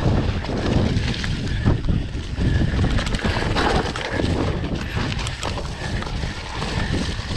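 Wind buffeting the microphone of a camera on a moving rider, over a steady rumble with irregular knocks and rattles from the bike running over rough ground.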